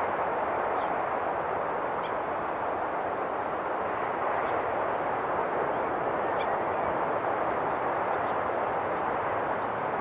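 Steady, unbroken wash of sea surf breaking on the shore of a bay, with faint short bird chirps scattered high above it.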